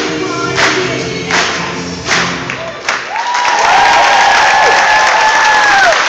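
Upbeat music with a steady beat ends about halfway through, and the audience breaks into loud applause and cheering, with long held whoops over the clapping.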